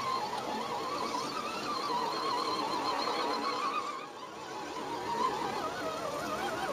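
Axial SCX10 RC crawler's electric motor and geartrain whining, the pitch wavering up and down continuously, with a brief drop in level about four seconds in.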